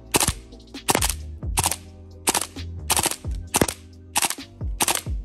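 KWA PTS Masada gas blowback airsoft rifle firing short full-auto bursts of one or two shots each, about one burst every two-thirds of a second, each shot a sharp crack.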